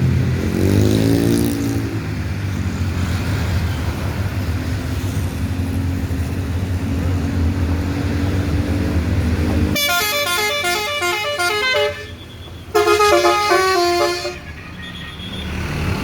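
Basuri musical horn on a bus or truck playing a quick tune of stepped notes in two short phrases, the first about ten seconds in and the second about a second after it ends. The vehicle's engine runs steadily underneath before the tune.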